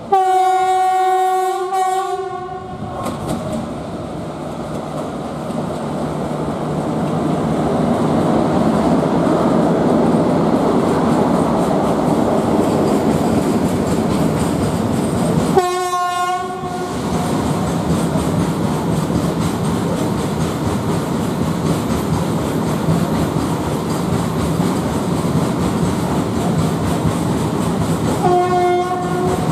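Freight train hauled by a WAG7 electric locomotive passing by: the horn sounds one long blast of about three seconds, then the steady rumble of the coal wagons rolling over the track, with a short second blast about halfway and a short third blast near the end.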